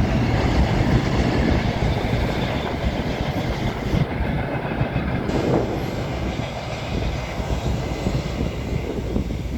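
Train running along the track: a steady rumble of wheels on rails, easing off slightly toward the end.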